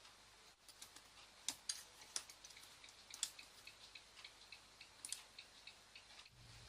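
Faint, scattered sharp clicks and taps, with a run of lighter ticks about three a second through the middle and latter part.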